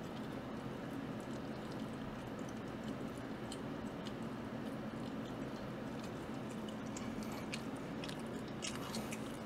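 Steady low hum of room tone with scattered faint clicks, more of them near the end.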